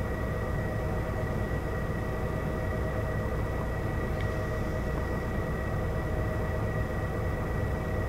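Volvo B12BLE bus engine idling, heard from inside the cabin: a steady low rumble with an unchanging high whine over it, the odd engine sound of this bus.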